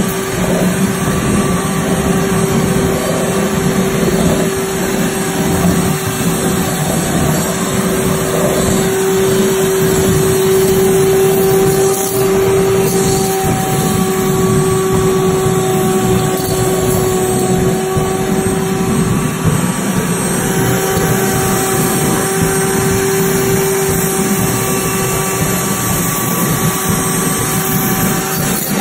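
Electric router running at full speed with its cutter shaving rigid foam as the dome turns past it: a steady, high motor whine over a loud hiss of cutting.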